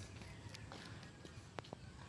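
Faint steady background with a few light, sharp clicks scattered through it.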